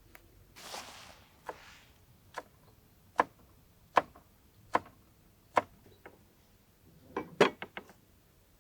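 A series of sharp chopping knocks, about one every 0.8 seconds, ending with a quick flurry of several strikes; a brief rustle comes just before the first knocks.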